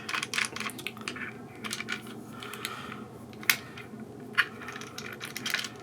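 Hard parts of a motorized camera slider and its phone mount clicking and knocking as it is handled and turned over, a scatter of small clicks with two sharper ones about three and a half and four and a half seconds in.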